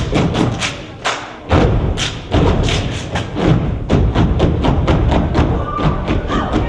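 Step team stomping and clapping in a fast, driving rhythm, with a brief break about a second in.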